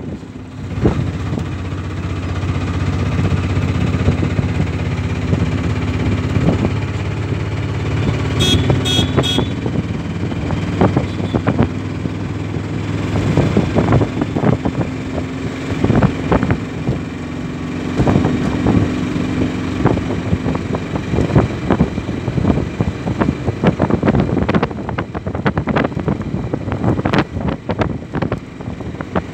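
Small vehicle engine, likely an auto-rickshaw's, running steadily while driving, with the body rattling and knocking on a rough road. The rattling gets busier in the second half. Three quick high beeps come about nine seconds in.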